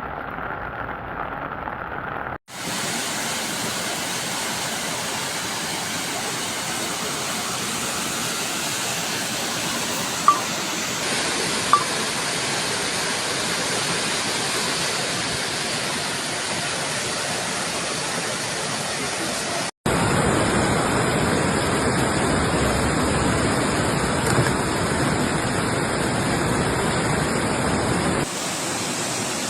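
Floodwater rushing in a steady wash of noise, its character changing abruptly at clip cuts. Two brief high-pitched tones stand out about ten and twelve seconds in.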